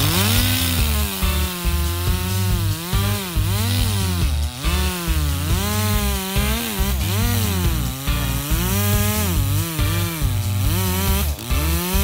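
Echo two-stroke chainsaw at full throttle cutting the notch into a standing tree trunk; the engine pitch rises and falls over and over as the chain bites into the wood and frees up again.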